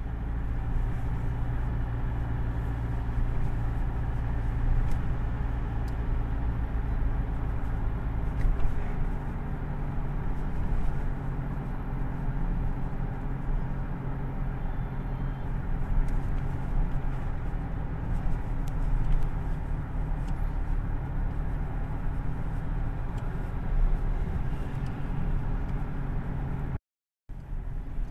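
Steady engine and road rumble heard from inside a moving car, with tyre noise. The sound cuts out for a moment near the end.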